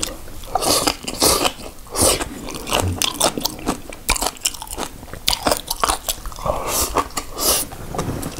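A person chewing a mouthful of green onion kimchi (pa-kimchi) with rice, with a quick, irregular run of crunches.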